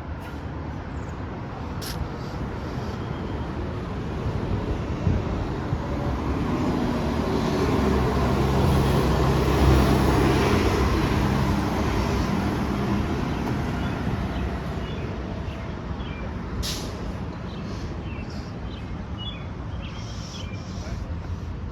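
City bus engine droning as the bus approaches and drives past, growing louder to a peak about ten seconds in and then fading away, over steady traffic noise. A couple of short sharp clicks stand out, one near the start and one near the end.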